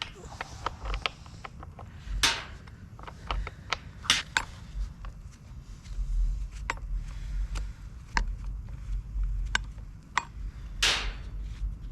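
Clicks, taps and scrapes of hands and a tool working at the plastic covers and parts of a Husqvarna 36 chainsaw as it is taken apart, with three longer scraping swishes about 2, 4 and 11 seconds in.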